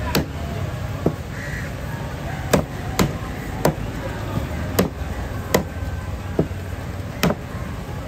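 Large curved fish knife chopping through fish fillet onto a thick wooden cutting board: about ten sharp knocks, irregularly spaced. A crow caws in the background.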